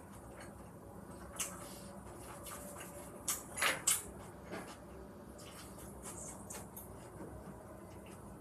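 Metal chopsticks clicking and clattering against plastic takeout containers while food is picked up: a few sharp clicks, loudest in a quick cluster of three about three and a half seconds in.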